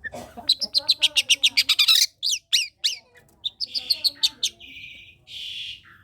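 Long-tailed shrike (cendet) singing loudly. It opens with a fast run of sharp, falling notes, about ten a second, then moves into slower sweeps and harsh, scratchy chattering notes.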